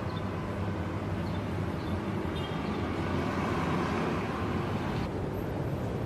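Street traffic ambience: steady road noise with a low rumble, swelling as a vehicle passes about halfway through.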